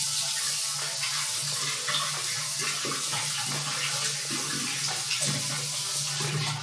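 Kitchen faucet running a steady stream of water onto cooked penne pasta in a mesh strainer over a stainless steel sink, rinsing the drained pasta.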